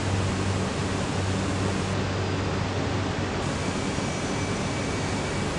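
Steady machinery noise in a steel pipe mill: an even hiss with a low hum underneath.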